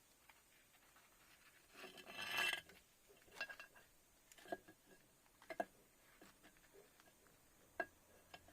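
Metal engine parts being handled: a brief rubbing scrape about two seconds in, then several light metallic clinks that ring briefly.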